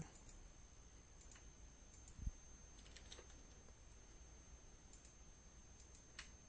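Near silence, broken by a few faint, sharp computer mouse clicks spread over several seconds as lines are picked for a dimension, with a faint steady high tone underneath.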